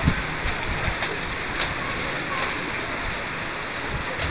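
Steady rain falling, an even hiss of drops, with a single knock just after the start.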